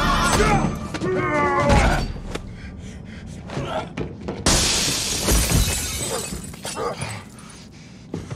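A song plays for about the first two seconds, followed by scattered knocks. About four and a half seconds in comes a sudden crash of shattering glass, trailing off into scattered clinks of debris.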